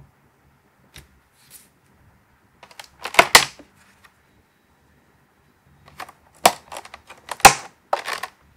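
Plastic packaging handled and set down on a cutting board: clicks, taps and crinkles of a clamshell fruit pack and wrappers, with a single tap about a second in, a loud cluster about three seconds in, and more from about six seconds until near the end.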